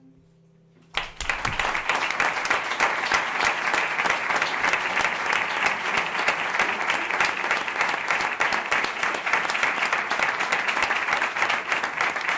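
The last note of a guitar song fades away, then about a second in an audience starts applauding and keeps clapping steadily.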